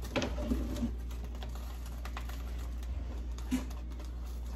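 Light clicks and scrapes of a silicone spatula pushing diced onion around a nonstick frying pan, with a cluster in the first second and another a little past halfway. The pan is not yet hot enough to sizzle. A steady low hum runs underneath.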